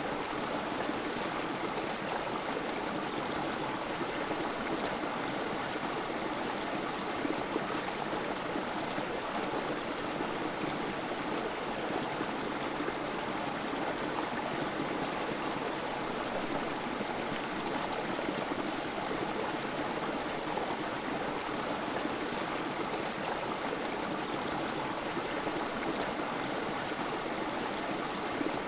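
A small creek running steadily, water trickling and splashing over rocks in a little cascade into a pool.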